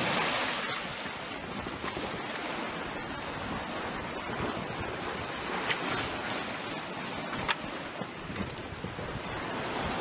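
Wind and rushing water aboard a sailing yacht under way in a choppy sea: a steady rush of wind and breaking wash alongside the hull, with a couple of short faint clicks midway.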